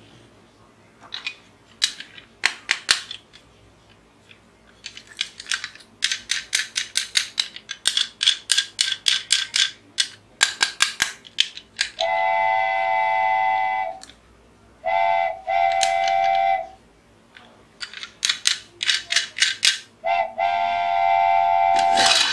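Small plastic toy car handled, giving runs of rapid clicking, then sounding a steady whistle-like tone three times, each lasting a second or two, with more clicking in between.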